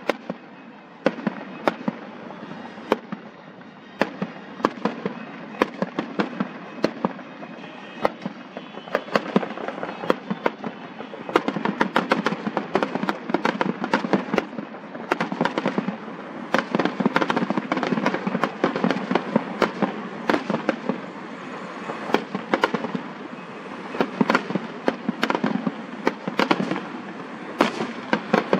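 Fireworks going off in quick succession: many sharp bangs and crackling pops, with no gap.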